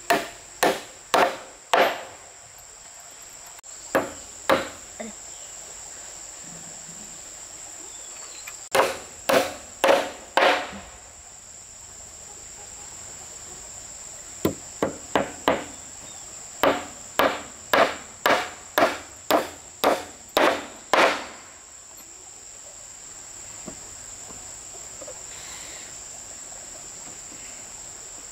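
Repeated blows of a hand tool on wood, in bursts of a few strokes at about two a second, with a longer run of about ten strokes in the second half. A steady high insect drone runs underneath.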